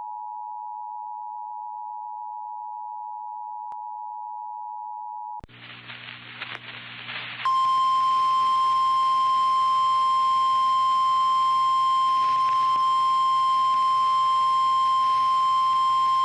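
Emergency Alert System attention signal, a steady two-note tone, cuts off about five seconds in. After a couple of seconds of hiss and hum, the louder single steady tone of the NOAA Weather Radio warning alarm sounds for about nine seconds. Together the two tones announce a tornado warning broadcast.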